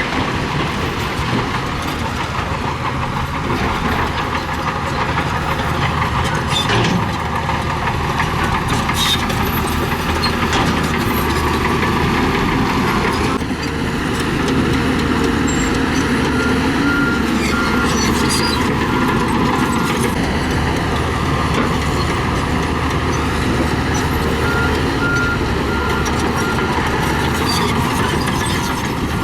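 Diesel engines of heavy earthmoving machinery working steadily under load, with a reversing alarm beeping in regular pulses in the second half.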